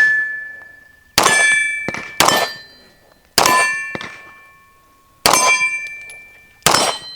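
Five gunshots striking steel targets about a second apart, each hit ringing out with a clear metallic ding that fades over a second or two.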